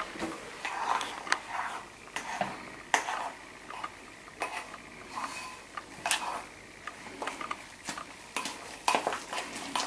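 Metal spoon stirring protein powder into cooked oatmeal in a ceramic bowl, with irregular scrapes and clinks against the bowl's sides.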